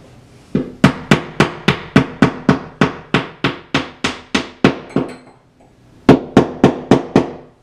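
Small hammer tapping a wall anchor into a drilled hole in drywall: a quick, even run of light taps, about four a second, then a pause of about a second and a few more taps.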